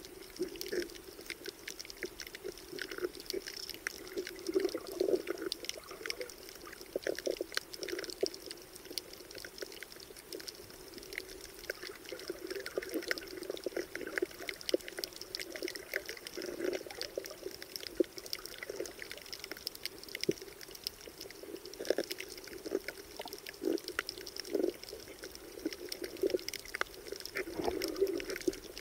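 Underwater sound picked up by a submerged camera: muffled, surging water with frequent scattered clicks and crackles throughout.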